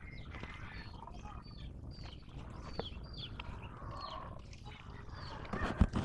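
Birds chirping: a steady run of short, falling chirps over a low rumble, with one loud knock near the end.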